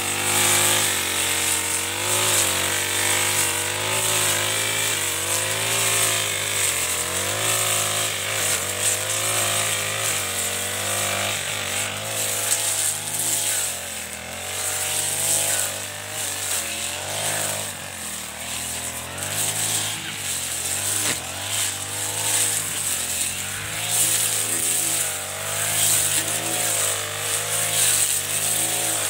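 Four-stroke backpack brush cutter (a Chinese-made Honda-type engine) running while cutting tall grass and weeds, its engine speed rising and falling as the blade bites into the growth. It grows somewhat fainter in the middle as the machine moves farther off, then louder again.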